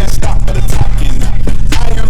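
Hip-hop backing track with heavy bass and a steady drum beat.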